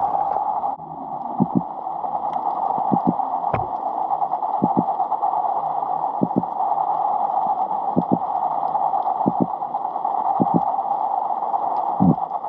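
Underwater sound picked up by a submerged GoPro in its waterproof housing: a steady, muffled water hiss with dull knocks at irregular spacing, about once a second.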